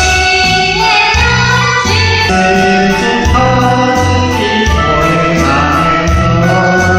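A vocal duet sung over a karaoke backing track with a steady, repeating bass line.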